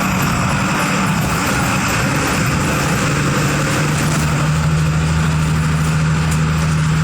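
Diesel engine of a Volkswagen 17.210 EOD bus running, its low note wavering a little at first and then holding a steady drone from about halfway through.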